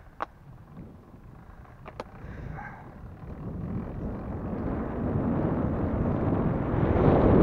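Wind buffeting the microphone of a recumbent bike, swelling steadily louder as the bike picks up speed. Two sharp clicks come through, one near the start and one about two seconds in.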